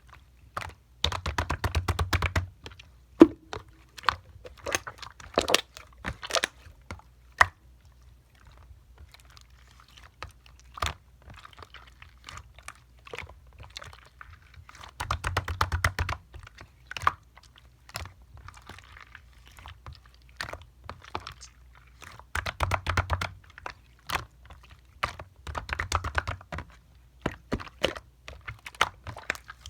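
Clear, colourless slime being pressed and squeezed by hand, giving sticky crackling clicks and pops. These come in four dense bursts, with scattered single pops between them.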